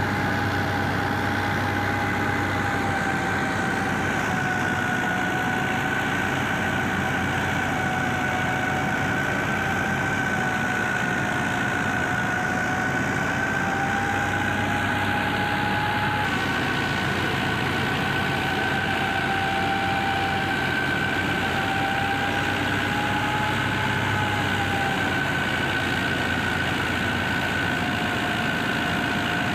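Belt-driven wheat thresher running steadily off a New Holland Dabung 85 tractor's engine while being fed wheat: a continuous machine hum with a high whine that wavers slightly in pitch.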